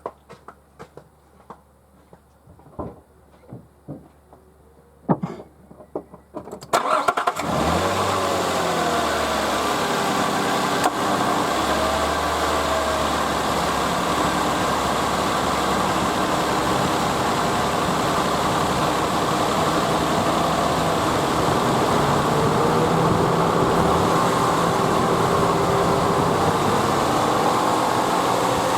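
A few scattered clicks and knocks, then about seven seconds in a Nissan Elgrand E51's 2.5-litre VQ25DE V6 starts and settles into a steady run. Its pitch rises and falls a little later on.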